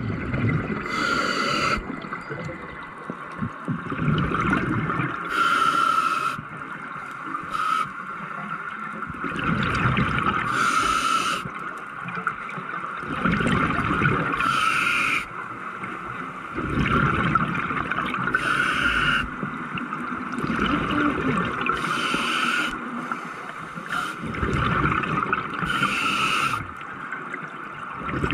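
Scuba regulator breathing heard underwater: a short hissing inhale every four to five seconds, alternating with a longer low gurgling rush of exhaled bubbles, over a steady high hum.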